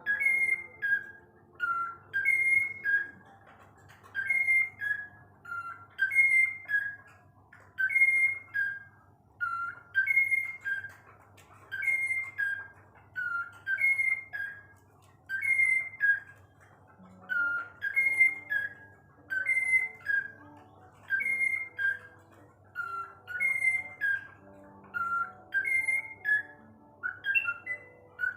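A short whistled phrase of three or four stepping notes, repeated very regularly about every two seconds, over faint steady background tones.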